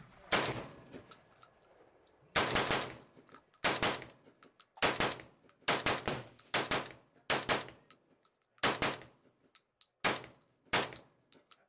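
Saiga 12 semi-automatic 12-gauge shotgun with a drum magazine fired in a string of about a dozen shots: one shot, a pause of about two seconds, then steady semi-auto fire roughly one shot a second, each ending in a short ring.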